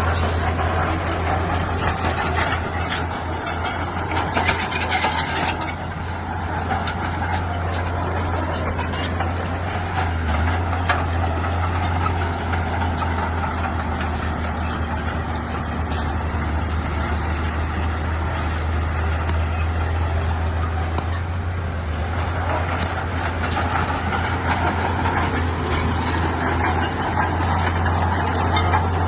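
Crawler bulldozer working, its diesel engine running steadily with a deep hum under it.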